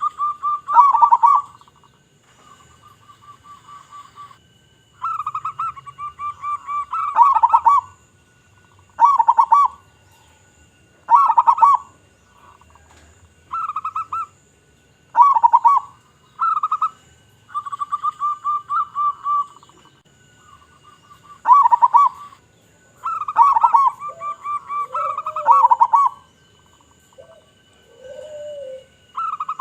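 Zebra doves (perkutut) cooing: repeated phrases of quick, rolling coo notes every second or two, some loud and some fainter trills in between, with a few lower single coos near the end.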